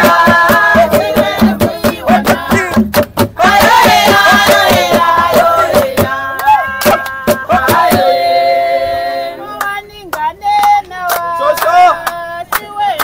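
Voices singing a song with long held notes, accompanied by hand-claps.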